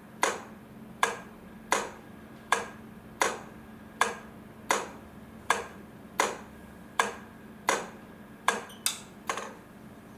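Railway crossing light flasher relay clicking at an even pace, about four clicks every three seconds, over a steady low hum. Near the end the clicks come quicker and unevenly, then stop.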